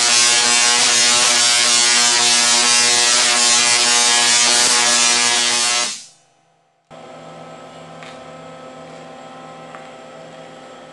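SIDAC-triggered spark-gap Tesla coil firing streamers into the air with a loud, steady, harsh buzz that fades out about six seconds in. After a brief silence comes a much quieter steady hum.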